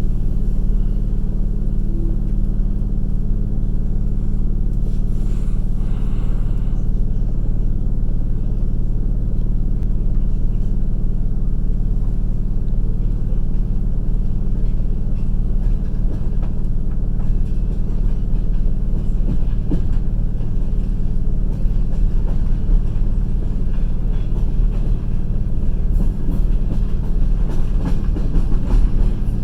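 Passenger train running on the rails, heard from aboard the carriage: a steady low rumble of wheels and running gear with a constant low hum, and faint wheel clicks near the end.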